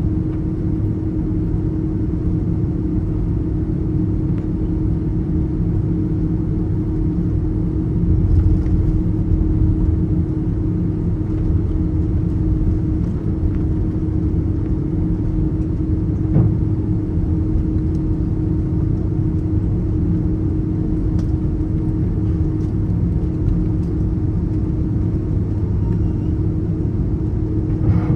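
Airbus A330 airliner cabin noise: a steady low rumble of engines and airflow with a constant hum, swelling slightly about eight seconds in.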